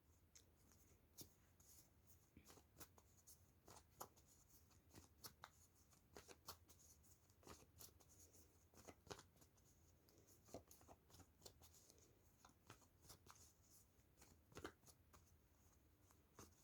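Near silence with faint, scattered soft clicks of a tarot deck being shuffled and handled by hand.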